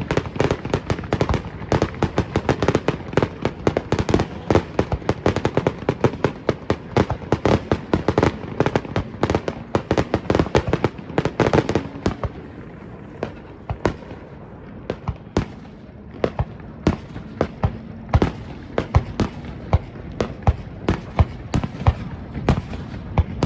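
Fireworks display: aerial shells bursting in rapid succession, several bangs a second with crackle between. The bangs thin out about halfway through, then come thick again near the end.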